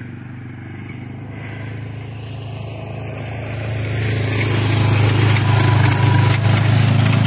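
ATV (quad) engine running at a steady low hum as the quad drives up and passes close by, growing louder about halfway through and loudest near the end.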